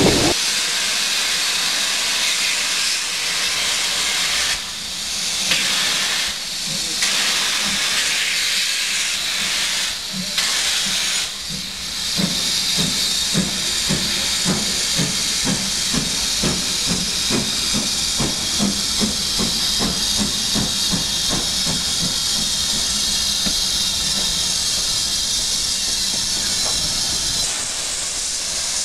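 Steam locomotive hissing steam as it pulls away. A regular pulsing beat of about two or three a second runs under the hiss from about halfway through until shortly before the end.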